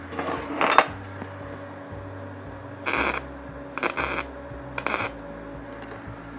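Arc welder striking three short tack welds about a second apart, each a brief crackling burst, tacking a curved flat-stock insert into a worn bushing housing. A few metal clinks from handling the work come in the first second.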